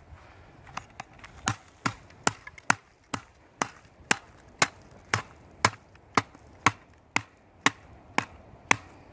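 A digging tool chopping into the ground in steady sharp blows, about two a second, starting about a second in.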